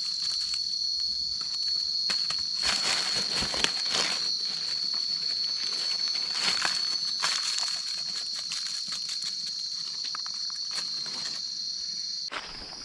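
A steady high-pitched drone of insects in the forest, with irregular crunching and rustling of dry leaf litter underfoot and under hand.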